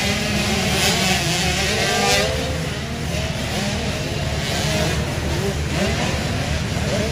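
Several motocross bike engines revving up and down at once, their pitches rising and falling as they race around the dirt track.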